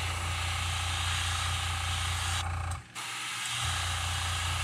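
Gravity-feed airbrush spraying black paint at about 21 psi: a steady hiss of air and paint that breaks off briefly about halfway through, with a steady low hum underneath.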